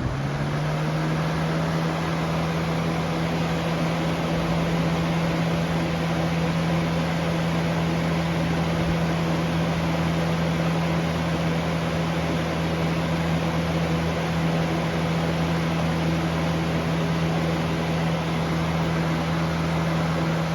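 Lasko 3723 box fan running on high speed: a steady rush of air with a constant hum from the motor and blades, the hum rising slightly in the first second as it finishes coming up to speed.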